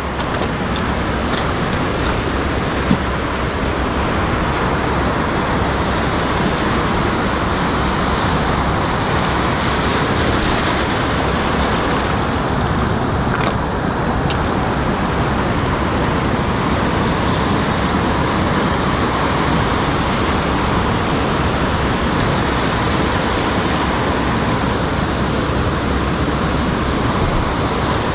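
Steady rushing noise of surf washing in over shoreline rocks, with one brief knock about three seconds in.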